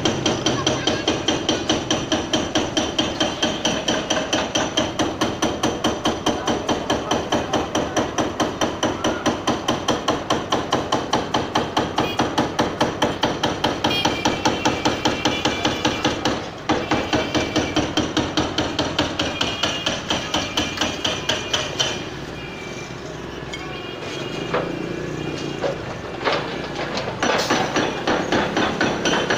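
Hydraulic breaker on a Hitachi excavator pounding a concrete building: a rapid, steady stream of blows, several a second. The blows break off briefly past the middle, stop for several seconds near the end, then start again.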